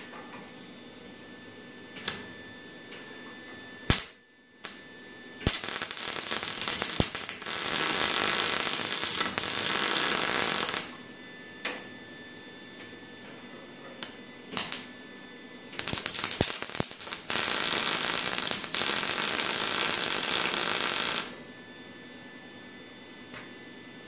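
MIG welder plug-welding sheet-steel cowl panel seams: two runs of steady crackling arc, each about five seconds long, with a few short sharp clicks of brief tacks between them.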